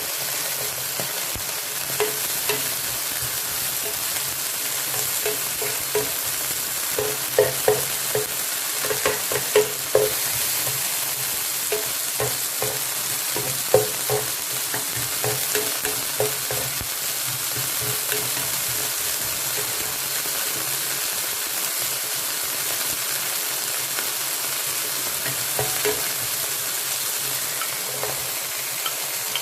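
Chicken, garlic and vegetables frying in oil in a pan with a steady sizzle, while a spatula stirs them with irregular knocks and scrapes against the pan, most of them in the middle of the stretch.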